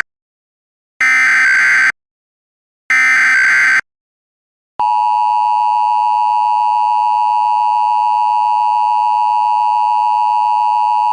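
Emergency Alert System signal: the last two of three SAME header data bursts, about a second each with a second's gap between them, then the steady two-tone EAS attention signal starting about five seconds in.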